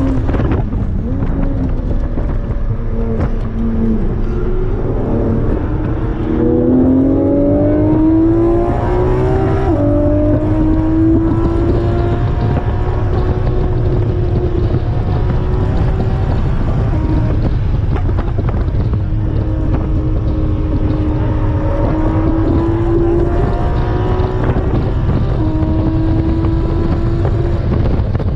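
Porsche 718 Cayman GT4's 4.0-litre flat-six with a modified exhaust, heard from inside the cabin while being driven hard on track. The engine note climbs under acceleration and drops sharply at an upshift about ten seconds in, then holds and climbs again with further shifts near the end, over a steady rumble of road and tyre noise.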